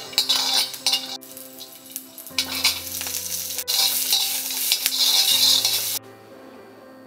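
Whole spices and garlic cloves sizzling in hot fat in a steel kadai, with a metal spatula scraping and stirring them around the pan. The sizzle comes in stretches with short breaks and cuts off suddenly about six seconds in.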